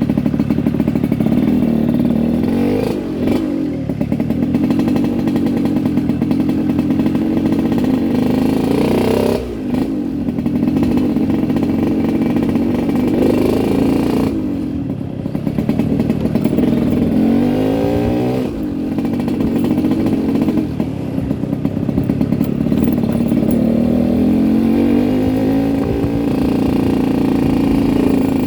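Yamaha RX-King two-stroke single-cylinder motorcycle engine running with a deep, growling exhaust note, the sound RX-King riders call 'ngorok' (snoring). The engine pitch climbs and drops back several times.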